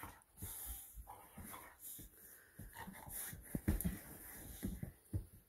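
Boxer puppies play-wrestling with an adult boxer: irregular dog breaths, snuffles and soft scuffles, with a few louder ones about three and a half to four seconds in.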